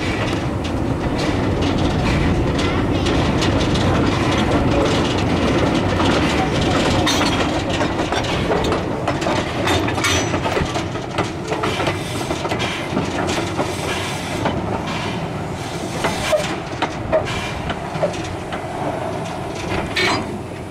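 Steam locomotive K 92 running under steam, heard from just behind its tender: a dense, steady rumble and clatter of the engine and its wheels on the rails. The rumble is loudest in the first half, and separate knocks and clanks stand out more in the second half.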